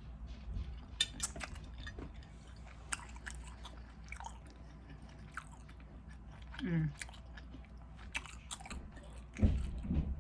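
Close-miked chewing and biting of food: a run of wet mouth clicks and smacks, with a low thump near the end.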